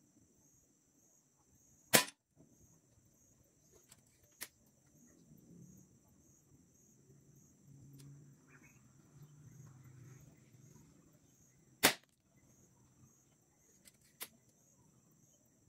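Two sharp shots from a 5.5 mm NAJA 2.0 air rifle about ten seconds apart, each with a quick echo, with fainter clicks a couple of seconds after each shot. The loud reports come with heavy dieseling, which the shooter calls immense.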